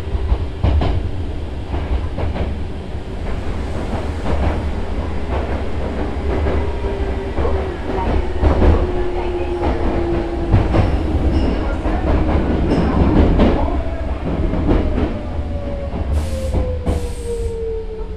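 Nose Electric Railway 5100-series resistor-controlled electric train running, heard aboard: a heavy rumble with wheels clicking over rail joints, and a motor whine that falls steadily in pitch as the train slows. Two short hisses come near the end.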